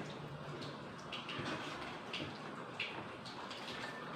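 Faint, scattered light clicks and clinks of utensils and dishes as people eat at a table, over low room noise.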